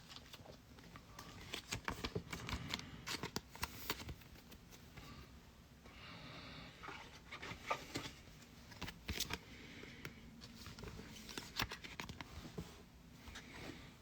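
Faint, scattered clicks and rustles of 2024 Panini Prizm trading cards and their packaging being handled, with a short stretch of soft rustling about six seconds in.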